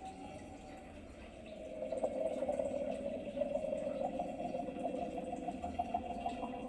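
A steady bubbling, watery sound that grows louder about a second and a half in.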